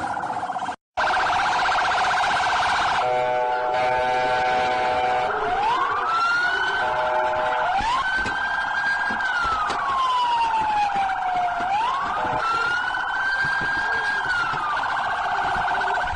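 Police car siren: a fast warble cut by a brief dropout about a second in, with a slower wail rising and falling over it from about five seconds in, then the fast warble alone again near the end.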